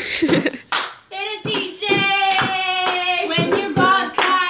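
Young women singing a homemade love song over a steady beat of hand claps, with one long held note in the middle.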